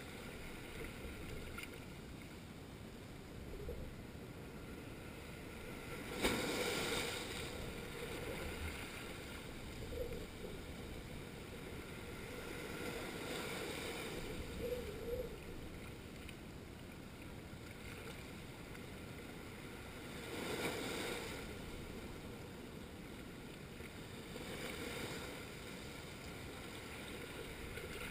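Small waves breaking and washing in over a rocky shoreline: a steady wash of surf that swells with each incoming wave every few seconds. The loudest surge comes about six seconds in.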